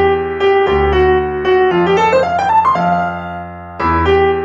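Background music: a keyboard melody over held bass notes, with a rising run of notes in the middle, dying away before the phrase starts again near the end.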